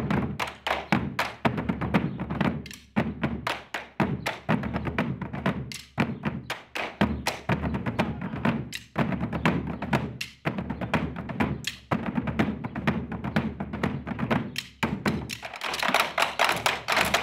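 Bombo legüero drumming: Argentine skin-headed frame drums struck with wooden sticks in a fast, driving rhythm of deep thuds on the heads mixed with sharp wooden clacks, broken by short pauses every few seconds. Near the end the clacks become sharper and denser.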